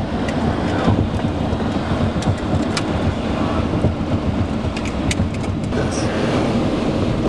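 Steady rumble of a car moving along a road, heard from inside the cabin: tyre and engine noise, with a few scattered light ticks.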